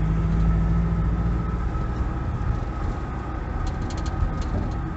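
Diesel GAZelle Next van driving, heard from inside the cab: steady engine and road rumble with a thin steady whistle above it. The owner puts the whistle down to a fault in the turbocharger.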